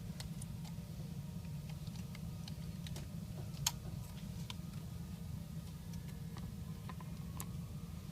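Sparse small clicks and taps of a tablet's digitizer screen, flex cable and frame being handled and fitted, with one sharper click about three and a half seconds in, over a steady low hum.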